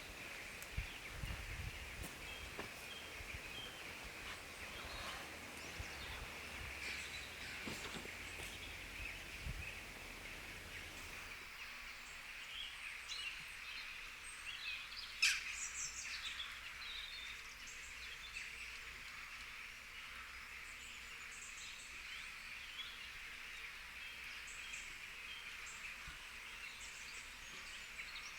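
Forest ambience: birds chirping over a steady high hiss, with scattered faint clicks. A low rumble underneath stops about eleven seconds in.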